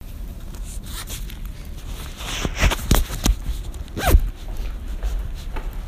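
Intro sound effects over a steady low hiss: a run of sharp clicks and swishes, then about four seconds in the loudest sound, a short tone that falls in pitch.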